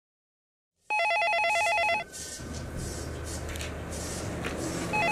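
Desk telephone ringing with an electronic warbling trill: one ring of about a second, then a second ring starting near the end, with low room noise between.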